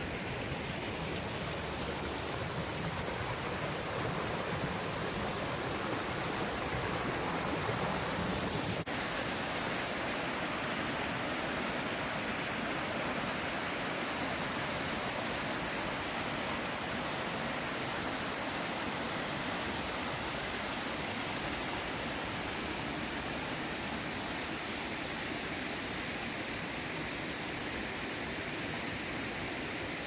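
Steady rushing of a waterfall, water cascading over rock ledges into pools, with a low rumble that eases slightly about nine seconds in.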